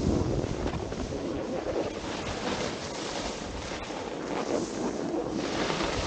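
Wind buffeting the camera's microphone over a snowboard sliding and scraping across packed, groomed snow, with a louder scraping hiss near the end.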